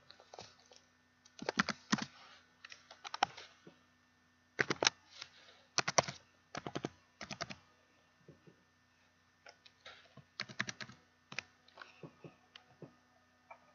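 Typing on a computer keyboard: short bursts of clicking keystrokes with pauses between.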